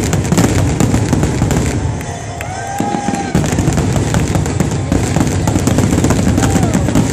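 Aerial fireworks launching and bursting in rapid succession, a near-continuous run of bangs and crackles.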